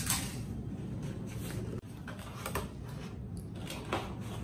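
Cardboard shipping box opened by hand. There is a sharp click at the start, then scattered crinkles and taps as the flaps are pulled open, over a steady low background hum.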